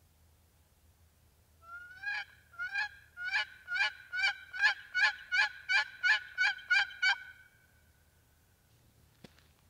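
Turkey call sounding a run of about a dozen evenly spaced hen yelps, about two a second, growing louder before stopping. It is a hunter calling to make a tom gobble.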